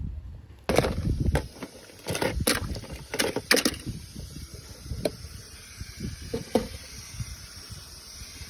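Hands handling and opening small plastic toy packaging: irregular clicks, taps and crinkly rustles, busiest in the first four seconds and softer afterwards.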